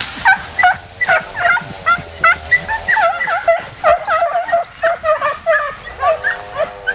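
Istrian hounds baying through scrub: a rapid, overlapping run of short high yelps from more than one dog, several a second.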